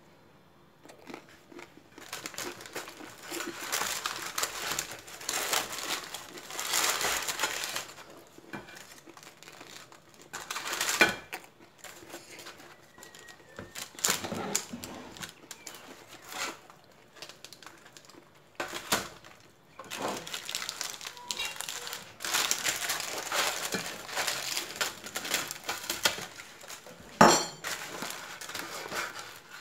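Baking paper crinkling and rustling on a metal baking tray as freshly baked cheese-topped flatbread is handled, with a few sharp knocks of the tray or its contents.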